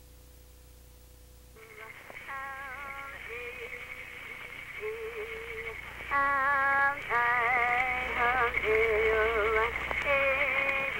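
Old field recording of Pankararu praiá dance music: voices sing a wavering, warbling melody over a steady high held tone. The music starts about a second and a half in and gets louder a few seconds later.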